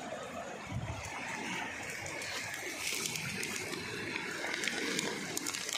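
Muddy floodwater flowing steadily through a wheat field. Short crackles of stalks brushing against the phone come about halfway through and again near the end.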